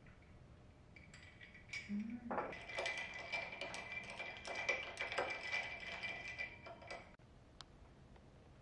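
Ice cubes crackling and clinking in a glass of iced coffee: a dense run of small clicks that starts about two seconds in and cuts off suddenly about seven seconds in.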